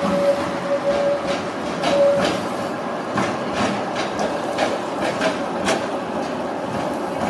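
Trondheim Class 8 tram running toward the listener around a curve. Its wheels click sharply several times over the rail joints and points. A high steady tone comes and goes in the first two seconds.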